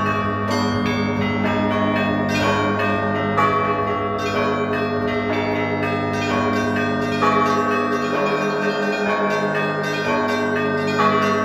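Orthodox monastery bells rung together: several bells of different pitches are struck in a steady repeating pattern over the lingering hum of a large bell.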